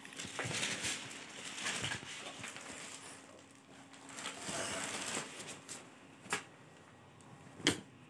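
Dress fabric rustling as clothes on plastic hangers are handled, followed by two sharp clicks near the end.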